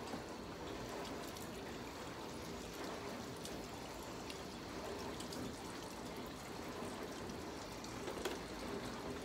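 Water running steadily from a sink tap.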